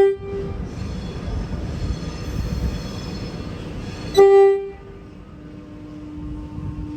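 Low-note horn of a Metro Trains Melbourne X'Trapolis electric train: the end of one short blast right at the start, then a second short blast about four seconds in. Between the blasts the train rumbles. After the second blast a steady tone from the moving train sets in.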